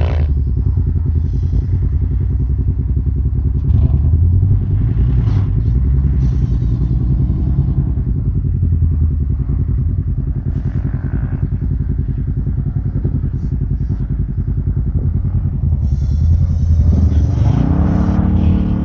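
Off-road vehicle engines idling with a low, steady rumble. Near the end one engine revs up.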